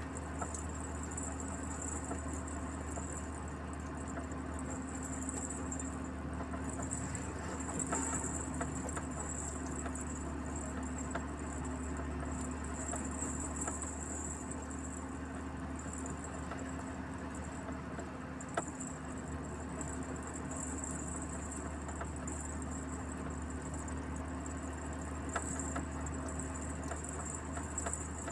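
Truck engine and road noise heard from inside the cab while driving: a steady low drone with a thin high hiss that swells and fades, and a few small clicks and rattles.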